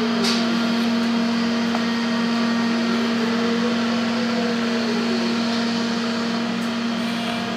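Electric fan motor running with a steady hum at one constant pitch.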